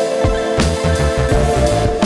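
Background music with a steady beat: held tones over bass and drum hits.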